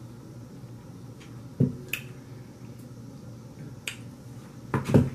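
A stemmed wine glass set down on a table with a thump, followed by a few sharp light clicks, then a louder double thump near the end.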